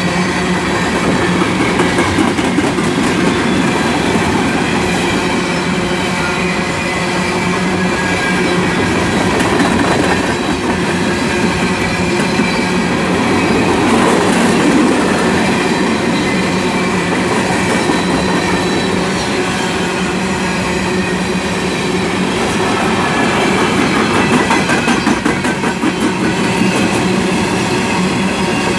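CSX freight train of open-top coal hopper cars rolling past, a steady rumble of steel wheels on rail with a continuous low hum.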